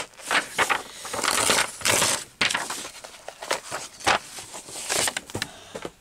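Paper rustling and crinkling in irregular bursts as book pages and a loose printed sheet are handled and moved about.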